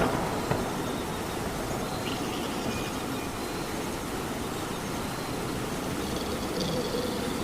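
Steady rain, an even hiss with no letup.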